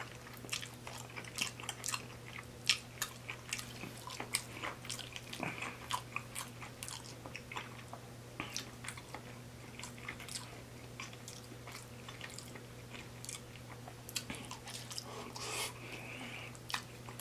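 A person chewing mouthfuls of cheesy spaghetti, with many small irregular mouth clicks and smacks.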